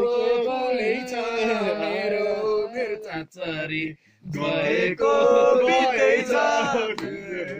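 Men singing a Nepali folk song together without instruments, drawing out long wavering notes, with a short breath break a little past the midpoint before the singing resumes.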